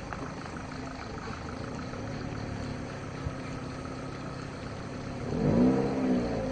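A motor vehicle's engine idling steadily, with one brief rise and fall in pitch about five seconds in.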